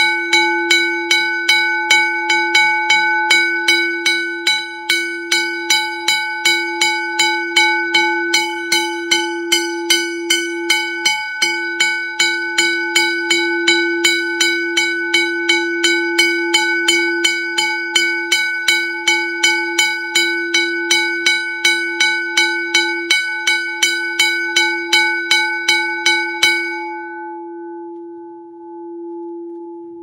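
Bryant Zinc bell's gong struck over and over, about two strikes a second, each stroke ringing with a clear low tone and many higher overtones. The strikes stop near the end, and the gong rings on with a long, steady decay. The gong has been freshly cleaned of rust, so it rings clear rather than clogged and flat.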